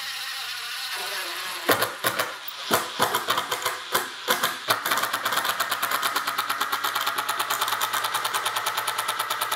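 Two DeWalt cordless impact drivers, a DCF850 Atomic and a DCF887, in speed one driving 3-inch wood screws into lumber. The motors spin the screws in at first, then from about two seconds in the impact mechanisms begin hammering in spurts, settling into a fast, even rattle as the screws bite deeper.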